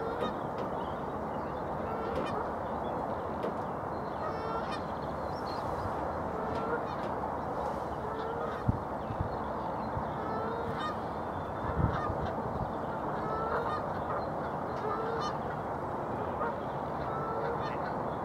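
Waterfowl calling: short calls repeated about once a second over a steady background noise, with two low thuds partway through.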